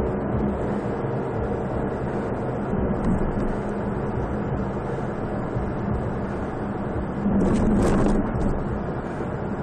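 Car engine and road noise heard from inside the cabin of a moving car: a steady hum under a rushing noise, growing louder for about a second near the end.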